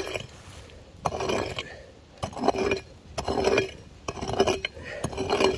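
A short-handled prospecting pick chopping and scraping into hard, stony clay soil, about one stroke a second, each with a gritty metallic clink and scrape.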